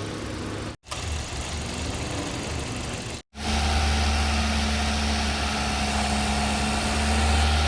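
Hyundai Grand i10 Nios engine idling steadily after the radiator cooling fan has been replaced, with none of the fan's old knocking noise. The sound cuts out briefly twice and is louder after the second break.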